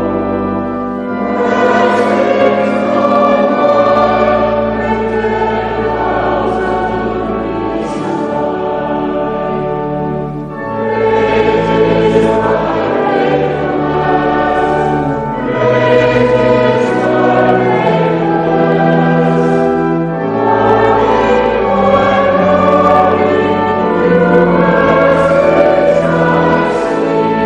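Choir singing a hymn over held low accompaniment notes, in long phrases with brief breaks about every ten seconds.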